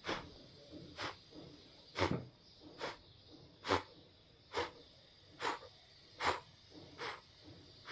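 A woman blowing out sharp puffs of breath through pursed lips, about one a second, nine in all, as a breathing exercise: breathing in through the nose and blowing out through the mouth.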